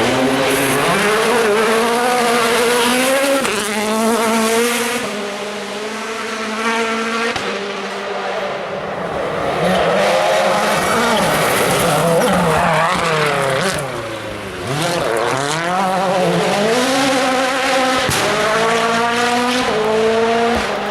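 World Rally Car's 1.6-litre turbocharged four-cylinder engine at full stage pace, revving hard, its pitch climbing through each gear and dropping at every shift, again and again. Tyre and gravel noise runs underneath, and there is a sharp crack about eighteen seconds in.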